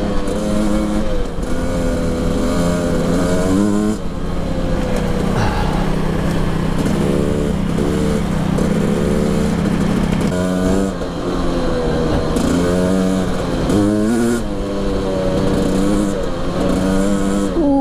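Husqvarna TE300i two-stroke single-cylinder enduro engine running under way, its pitch rising and falling again and again with throttle and gear changes, with a steadier stretch in the middle.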